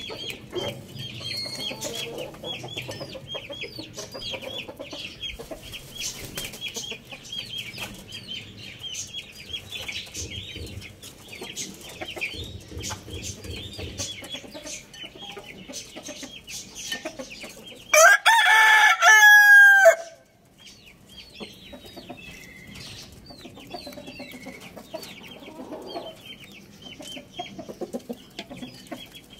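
A rooster crows once, loud and about two seconds long, its call dropping in pitch at the end, about two-thirds of the way in. Before and after it, a quick, steady patter of high chirps runs on, with soft low chicken sounds beneath.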